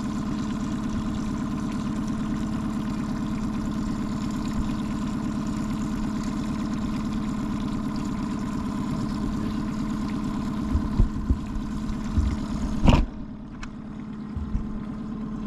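Boat motor running steadily at trolling speed, a low even hum with a steady tone. Late on come some low thumps and one sharp knock, after which the motor sounds quieter.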